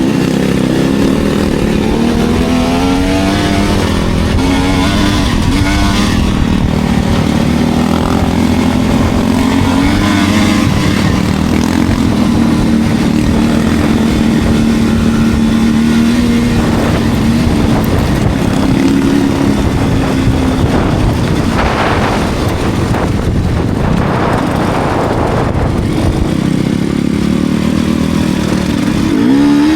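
Enduro dirt bike engine running on a trail ride, its pitch rising and falling with the throttle. Several louder rushes of noise come through in the second half.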